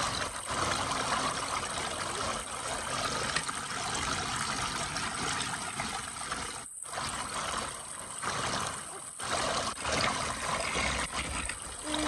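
Water falling in many thin streams from a toy water table's waterfall and splashing into its shallow pool, a steady trickling patter. It cuts out for a moment a little past halfway.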